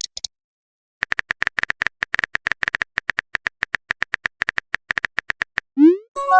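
Phone-keyboard typing sound effect: a rapid run of short clicks, roughly ten a second, for about four and a half seconds. Near the end, a quick rising pop and a multi-tone chime, a message-sent notification sound.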